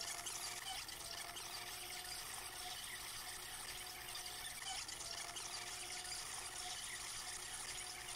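Water rushing and hissing along the hull of a Hewescraft 180 River Runner jet boat underway, over a faint steady tone from its 250-horsepower BRP Rotax jet drive that dips slightly in pitch now and then.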